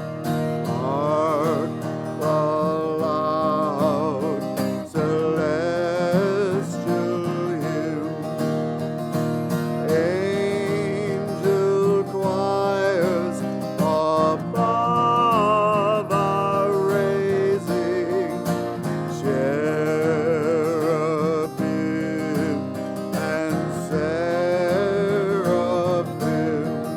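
Music: acoustic guitar accompaniment under a slow melody line with vibrato.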